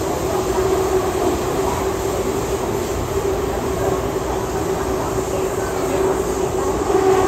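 MTR M-Train electric multiple unit running between stations, heard from inside the passenger car: a steady rumble of wheels and running gear with a steady hum over it, a little louder near the end.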